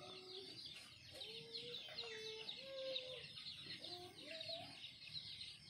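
Faint background chickens: a series of drawn-out hen calls, each about half a second long, over a constant high twittering.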